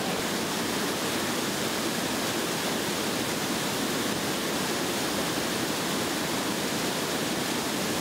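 River water rushing and churning over rocks in a cascade: a steady, even whitewater rush.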